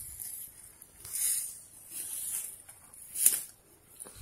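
Leaves and brush rustling in a few short swishes, with a sharper crackle about three seconds in.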